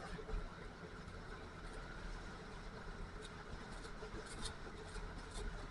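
Snowmobile engine running low and steady, a low rumble with scattered small clicks over it.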